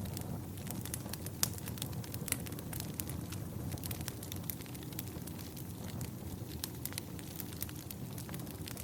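Wood campfire burning: a low steady rumble of flames with irregular sharp crackles and pops from the firewood, a couple of louder pops about one and a half and two and a half seconds in.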